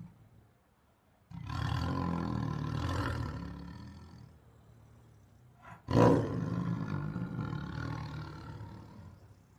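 Tiger roaring twice. A drawn-out roar lasts about three seconds. After a short gap, a second, louder roar starts abruptly and trails off over about three seconds.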